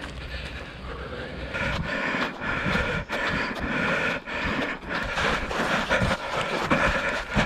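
A trail runner breathing hard on a steep climb, with footsteps crunching in wet, trodden snow about two or three times a second.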